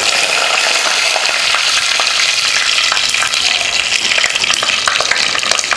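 Fresh curry leaves sizzling and crackling in hot oil, with fenugreek seeds already fried in it: the tempering stage of a South Indian curry. A steady hiss full of small pops.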